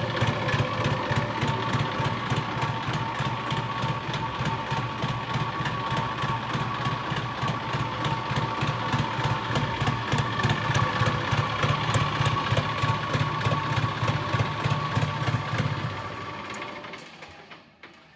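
Massey Ferguson 245 DI three-cylinder diesel tractor engine idling through a modified silencer, with a steady, rapid exhaust beat. About sixteen seconds in it is shut off and runs down to a stop.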